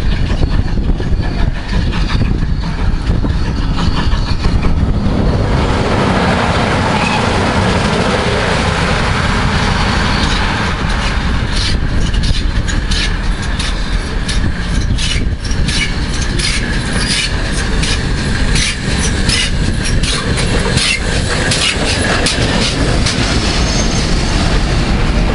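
A train running past on the track with a steady rumble. From about ten seconds in, a long run of clicks comes as its wheels pass over the rail joints.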